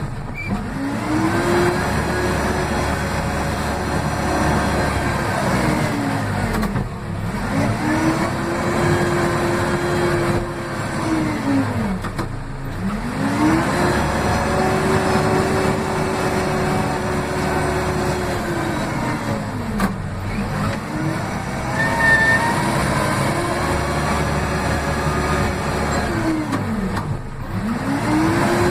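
Case 580M backhoe loader's diesel engine, heard from the cab beside the throttle pedal, revving up, holding high revs for a few seconds, then dropping back, about four times over, with another rev starting near the end.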